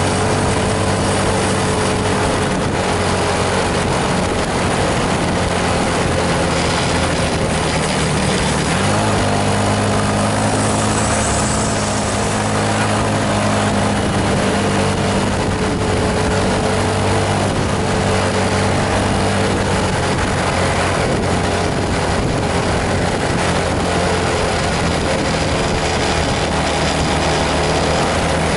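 Intercity bus diesel engine running steadily under load, over a constant hiss of road and rain noise; the engine note rises about nine seconds in and drops back around twenty seconds in.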